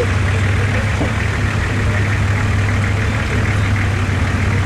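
Engine of an off-road 4x4 idling steadily, a constant low hum.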